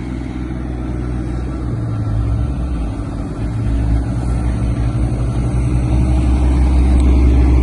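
Vehicle engine running steadily, its low hum gradually growing louder.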